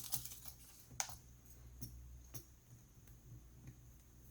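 A few faint, sharp plastic clicks and taps from laptop parts being handled and pressed into place during reassembly, the clearest about a second in, over a faint steady low hum.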